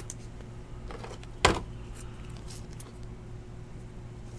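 A trading card being handled with a clear rigid plastic toploader: faint plastic handling clicks and one sharp tap about a second and a half in, over a steady low hum.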